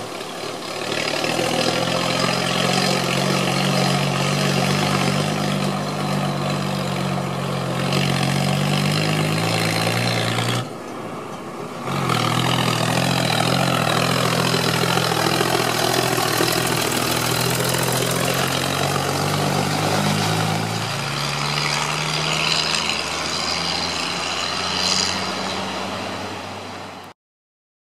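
Ford 8210 Gen I tractor's six-cylinder turbo diesel running steadily while pulling a loaded trailer. It drops away briefly about a third of the way in and shifts lower in pitch past the two-thirds mark. It fades near the end, then cuts off suddenly.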